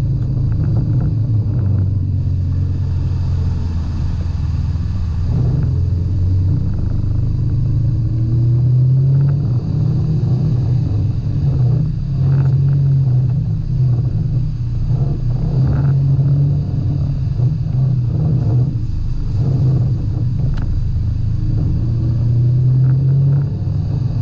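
Off-road side-by-side's engine running as it drives a dirt trail, its pitch rising and falling with the throttle, with occasional knocks.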